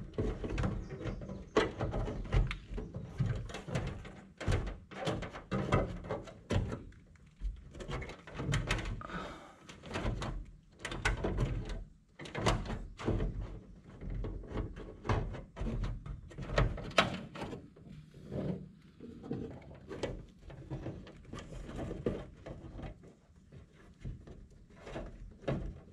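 Irregular clicks, taps and knocks of hands working fan wiring behind a truck grille, tucking the wires up out of sight against the body panels.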